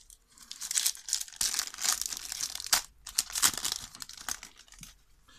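Foil wrapper of a Match Attax trading-card booster pack being torn open and crinkled in the hands: a crackling rustle in quick bursts, starting about half a second in and fading near the end.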